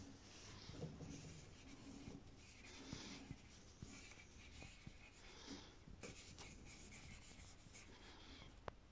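Faint scratching of a pencil on paper in short, uneven strokes as a hand writes.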